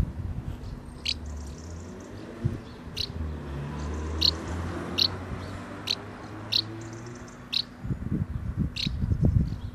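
House martins giving short, sharp chirping calls, one roughly every second, at their nest under the eaves. A low rumble runs underneath, with louder low gusts near the end.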